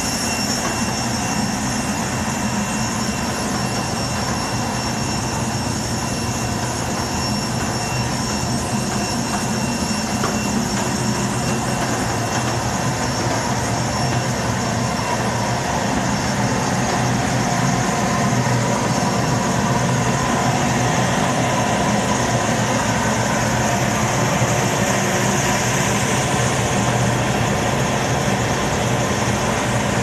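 Cyclotherm boilers running: a loud, steady mechanical roar with a low hum and a thin, constant high whine.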